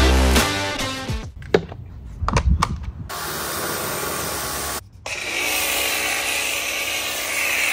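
Pressure washer spraying the motorcycle: a few short clipped bursts, then a steady hiss of spray over the motor's running, cut off for an instant partway through.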